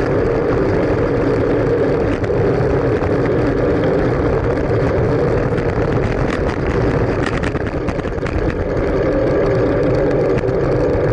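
Steady wind rush and road rumble on the microphone of a camera mounted on a moving fixed-gear bicycle, with a few faint clicks about six seconds in.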